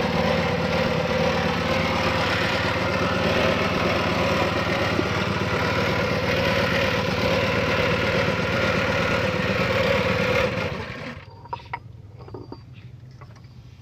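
An engine running steadily at idle, which cuts off about ten and a half seconds in, leaving a few faint clicks.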